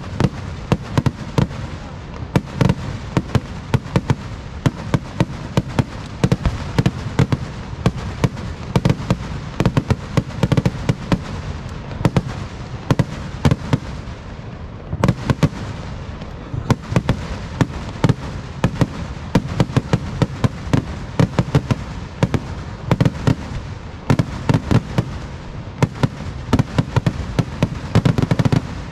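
Kerala vedikettu fireworks: a dense, unbroken barrage of firework bangs and cracks, many a second over a steady rumble, as shells are launched and burst one after another.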